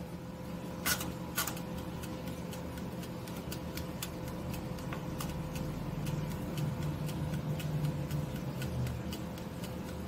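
Mechanical timer of a Mainstays 4-slice toaster oven ticking about twice a second as it runs, with two louder clicks about a second in, over a low steady hum.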